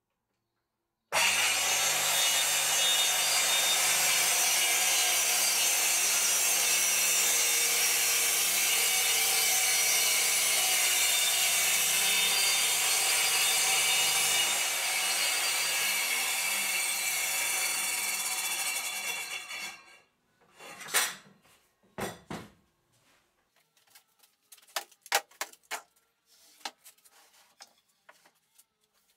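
Makita 5604R circular saw starting about a second in and running steadily for some eighteen seconds while rip-cutting a wooden strip along the grain with its blade tilted, then dying away. Afterwards a couple of sharp knocks and a run of light clicks and taps as the wooden strips and clamps are handled.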